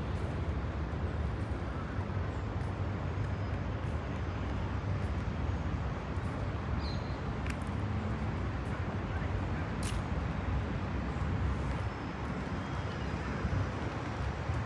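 Steady low rumble of city traffic ambience, with a brief high chirp about seven seconds in and a sharp click about ten seconds in.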